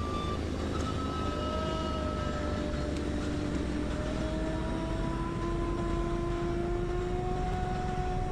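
A vehicle running with a steady low rumble and a faint tone that slowly rises in pitch.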